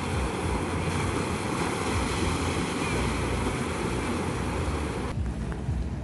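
Wake waves from a passing boat breaking and washing over a pebble shore, a steady rushing wash. It cuts off suddenly about five seconds in, leaving quieter open-air sound.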